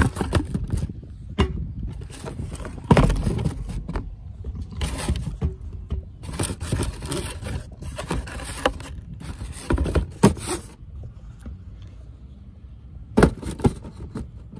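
Cardboard shoebox and its contents being handled, with irregular bursts of scraping and rustling and sharp knocks against the tabletop. It goes quieter about three quarters of the way through, then there are a few more knocks.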